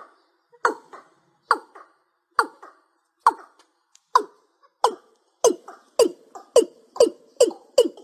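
Watercock calling: a series of hollow notes, each dropping in pitch. The notes start at about one a second and quicken to about two a second from around halfway.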